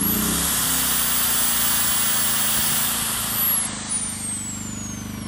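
Ridgid corded drill running at full speed off a Firman W2000 inverter generator. Its motor gives a high whine that holds steady, then falls away in a long wind-down after the trigger is released about three and a half seconds in. The generator's engine runs steadily underneath, carrying the drill's load.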